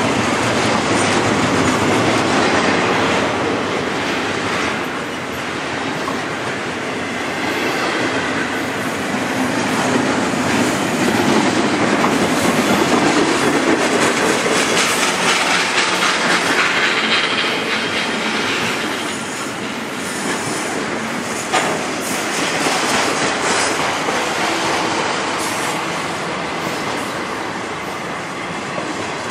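Florida East Coast intermodal freight cars with double-stack containers rolling past close by. The steel wheels clatter over the rail, with high wheel squeal at times.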